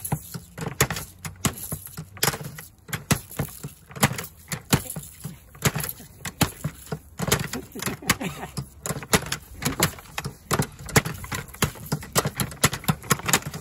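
Two hand-lever steel fighting robots clattering, with a fast, irregular run of metal clanks and knocks as their arms swing and their fists hit the aluminium drink cans mounted as their heads.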